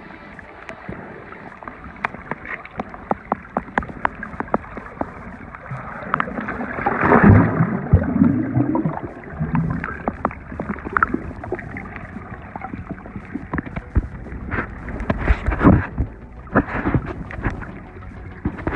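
Muffled water sound picked up by a camera held underwater while snorkelling: a steady sloshing hiss with many small clicks and knocks. It swells into louder bubbling and sloshing about seven seconds in, and there are a few heavier knocks near the end.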